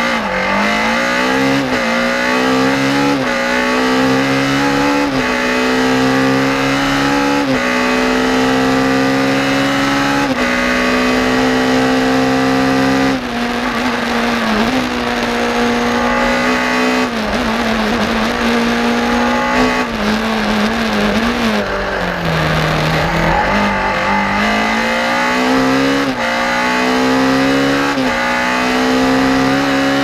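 BMW M3 E30 rally car's four-cylinder S14 engine under hard acceleration, its note climbing and dropping back at each quick upshift. A little past two-thirds through it falls to a lower note as the car slows for a bend, then pulls up through the gears again.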